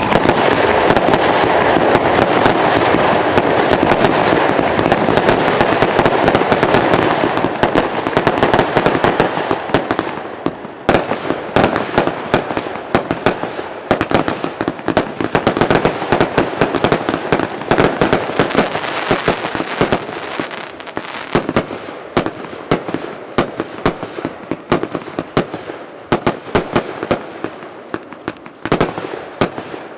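Two Vulcan 'Color Bombastic' 49-shot firework cakes firing, shots launching and bursting in quick succession. The noise is dense and unbroken for the first ten seconds or so, then breaks into many separate sharp pops that thin out toward the end.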